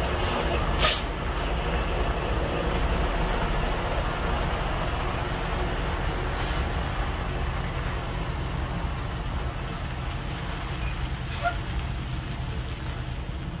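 Semi-truck diesel engine idling steadily, with a few short air hisses over it; the loudest comes about a second in.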